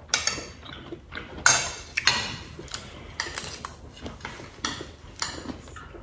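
Forks and spoons clinking and scraping against dinner plates as people eat: a steady run of sharp clicks and scrapes, the loudest about one and a half seconds in.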